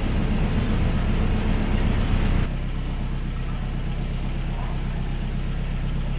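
A river cruise boat's engine running steadily with a low hum. About two and a half seconds in, the sound drops abruptly to a quieter, steadier hum.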